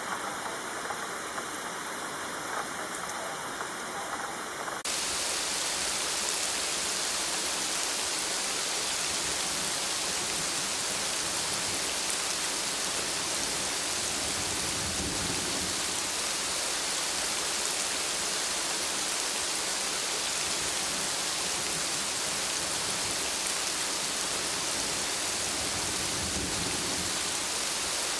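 Heavy rain falling steadily, a dense even hiss of drops. About five seconds in it jumps suddenly louder and brighter, then holds steady.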